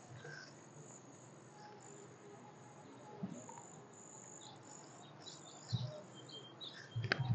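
Faint, high-pitched insect chirping, cricket-like, coming and going, with a couple of short knocks near the end.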